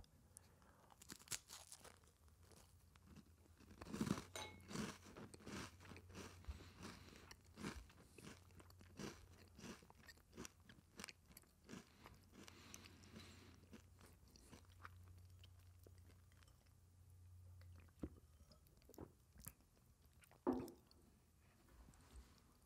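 Faint, close-up crunching and chewing of a communion cracker, the bites thickest from about four seconds in. A single louder knock comes near the end.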